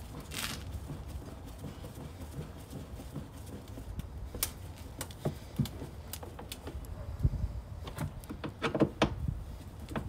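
Scattered clicks and taps of a hand screwdriver and plastic parts as T25 screws are driven back into a mud flap and fender liner, over a low steady rumble.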